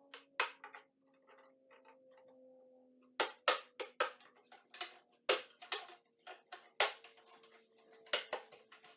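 Irregular sharp clicks and taps, a few of them much louder, over a faint steady hum that sinks slightly in pitch.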